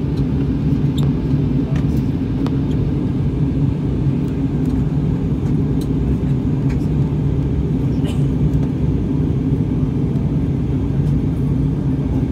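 Steady low rumble of a jet airliner's cabin noise, engines and airflow heard through the cabin from a window seat. The plane is descending toward landing.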